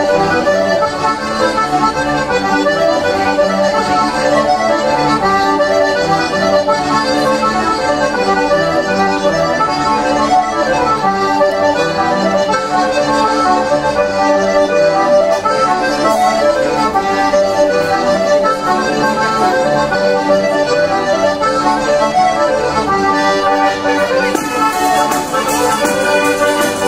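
A band of organetti (diatonic button accordions) playing a traditional Italian folk tune, with folk pipes and a tamburello frame drum, continuous and steady in level.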